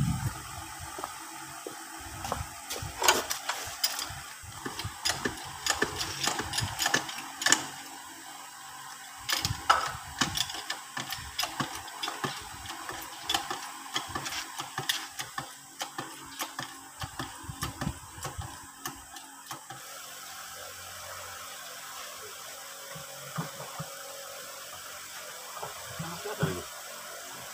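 Hand tools and steel parts clinking and knocking during work on a tractor's rear wheel hub: irregular sharp metallic clicks, dense for the first twenty seconds or so, then only a few scattered knocks.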